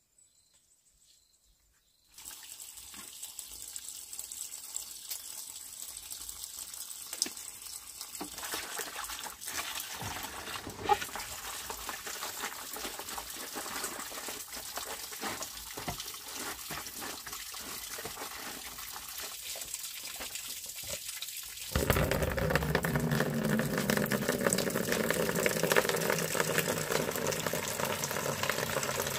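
Water pouring steadily from a bamboo pipe spout, with the squelch and slosh of wet clothes being scrubbed by hand in a plastic basin. About 22 s in the water sound turns louder and fuller as the stream splashes into a plastic basin.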